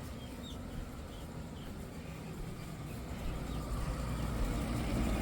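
Faint, short, high peeps of day-old chicks and guinea keets, a few spaced chirps in the first half. A low rumble comes up under them and grows louder through the second half.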